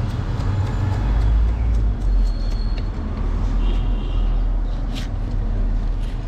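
Steady low rumble of road traffic, with a few light knife taps on a wooden chopping board as a cucumber is sliced.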